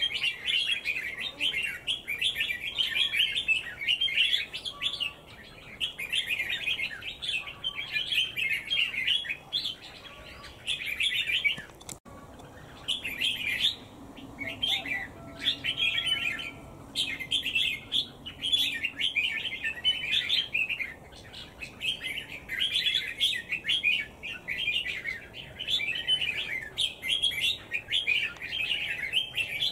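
Birds chirping and twittering in quick runs of a second or two with short breaks between them.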